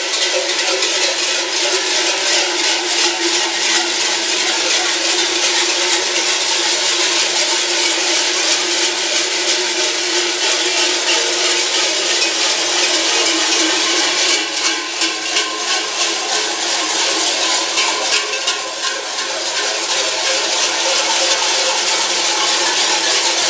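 Many cowbells (chocas) worn at the waists of cigarrón carnival costumes, clanging together in a dense, continuous jangle as a troupe of cigarróns runs past.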